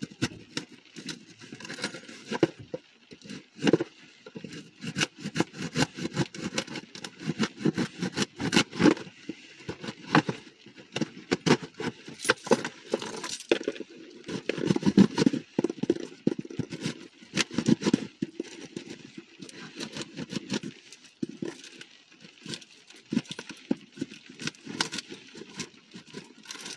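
Packaging crinkling and rustling as it is pulled and torn open by hand, a steady run of sharp crackles throughout.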